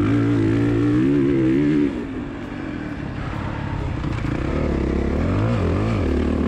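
Motocross dirt bike engine revving hard on a track, with the revs rising and falling. It drops off sharply about two seconds in, then builds back up and wavers as the rider gets on the throttle again.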